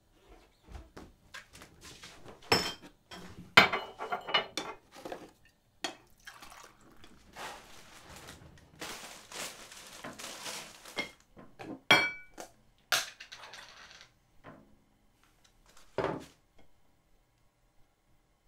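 Tableware being handled on a table: crockery and a jar knocking and clinking as they are set down, several sharp knocks among them, and a plastic bag rustling for a couple of seconds in the middle.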